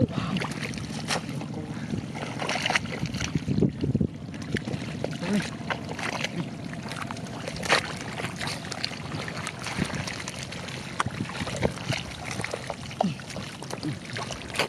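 Shallow water and mud sloshing and splashing irregularly as hands and legs work through a flooded, muddy rice field, with many short, sudden splashes.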